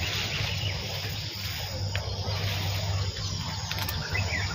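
Insects chirring steadily in the surrounding bush, over a constant low hum.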